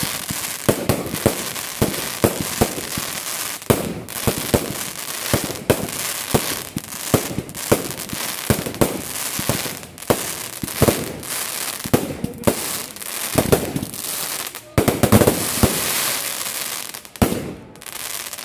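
Fireworks going off in quick succession: a dense run of sharp bangs and pops over a steady crackling hiss, heaviest about fifteen seconds in.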